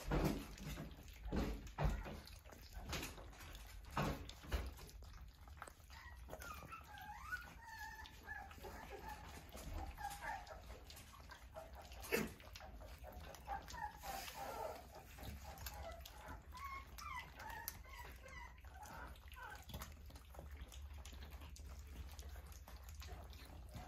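Young Australian Shepherd puppies whimpering and squeaking in short, high, rising and falling cries while they feed from a stainless steel pan. A few sharp knocks come in the first few seconds, with another about twelve seconds in.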